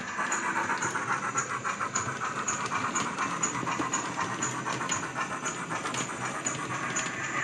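Model steam locomotive sound from the DCC sound decoder in a Bachmann OO gauge 94XX pannier tank: quick, even steam chuffs with a hiss as it runs under power. A light, regular ticking about twice a second runs alongside.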